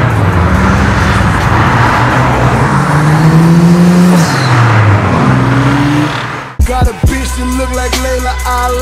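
Cars accelerating past one after another, each engine note rising as it pulls through a gear and dropping as it goes by. About six and a half seconds in the car sound cuts off and a hip hop beat takes over.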